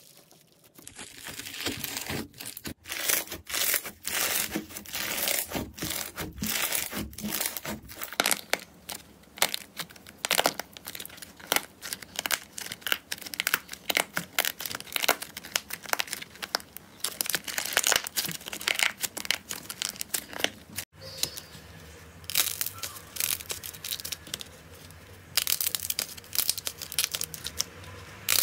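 Slime being pressed and stretched by hand, giving off a dense run of irregular crackles, pops and squelches. The sound breaks off abruptly about two-thirds of the way through and the crackling resumes a little sparser.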